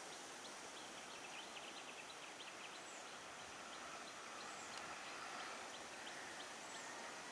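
Faint outdoor background: a steady hiss with small, quick high chirps scattered through it, several a second, and an occasional faint short whistle.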